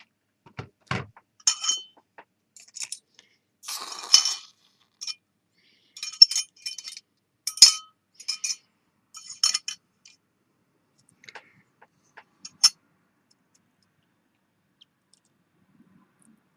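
A string of light, ringing clinks of metal against glass or metal, a dozen or so spread irregularly over about eleven seconds, with two dull knocks near the start.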